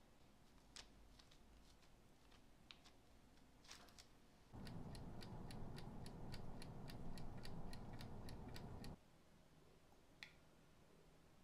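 A few light clicks of a wooden spoon working pastry dough, then about four seconds of an oven running with a steady hum and rapid, even ticking, about four ticks a second, which cuts off suddenly.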